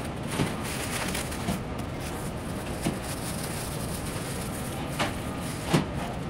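Thin disposable plastic gloves crinkling and rustling as they are pulled out and put on. There are a handful of sharp crinkles, the loudest near the end, over steady room noise.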